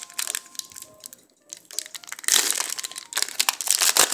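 Crinkling and rustling of a foil trading-card pack wrapper as the cards are handled, louder in the second half.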